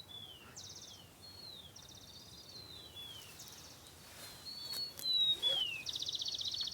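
Songbird singing in repeated phrases: a dry, buzzy trill alternating with short whistled notes that slide downward. The trill is loudest near the end.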